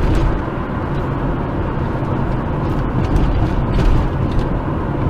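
A car driving along, with steady engine and road noise heard from inside the cabin.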